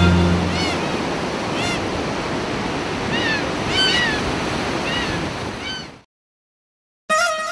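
Ocean surf breaking on a rocky shore, a steady wash of noise, with a bird giving short, arched calls about half a dozen times over it. The surf fades out about six seconds in, followed by a second of silence, and guitar music starts right at the end.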